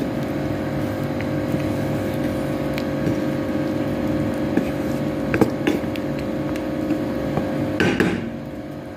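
Wooden spatula stirring a metal pot of simmering cream sauce, with scattered clicks and knocks against the pot, over a steady humming drone from a kitchen appliance. The sauce is being cooked down until it thickens.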